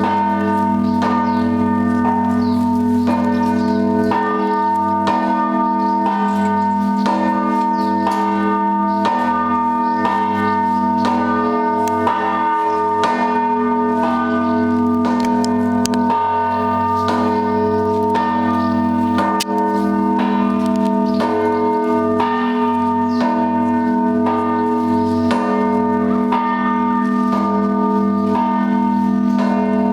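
Russian Orthodox monastery bells in a continuous, loud peal. Many bells of different pitches are struck in a fast, regular rhythm, while the low tones of the larger bells ring on underneath.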